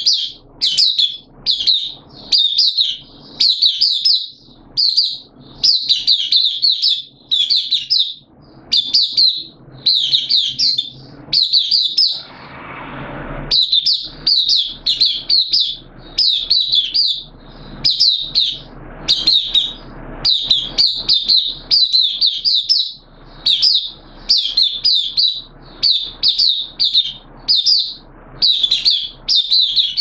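Caged white-eye (mata puteh) in open song: rapid, high twittering phrases, each about half a second long, following one another with short breaks. About twelve seconds in, the song pauses briefly under a soft rushing noise.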